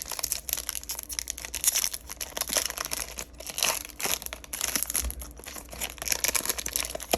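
Foil wrapper of a trading card pack being torn open and crinkled by hand, a continuous irregular crackle.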